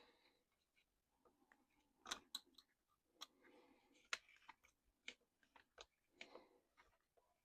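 Quiet, scattered light clicks and soft rustles of small RC crawler parts being handled during disassembly, a dozen or so irregular clicks.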